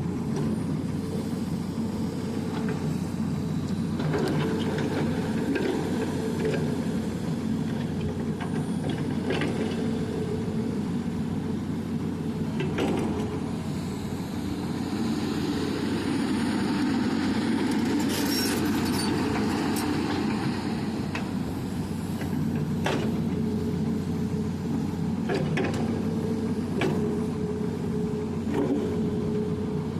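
Excavator's diesel engine running steadily under working load, with a few short knocks and clanks scattered through it.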